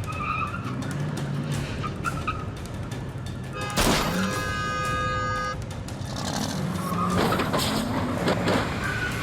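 Dramatic background music over a car engine, with one loud bang about four seconds in, followed by a short ringing tone.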